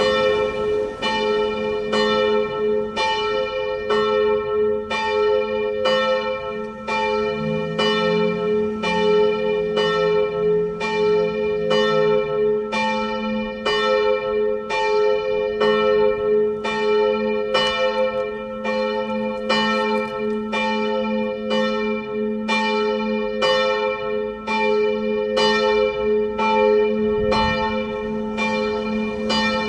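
The middle bell of St. Emmeram's church, swung and ringing alone. The clapper strikes in a steady rhythm of about one stroke a second, and the bell's hum carries on between strokes.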